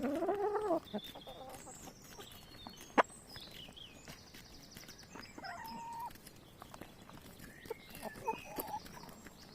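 Hens calling and clucking: a drawn-out call in the first second, then softer scattered calls, with a single sharp click about three seconds in and small birds chirping.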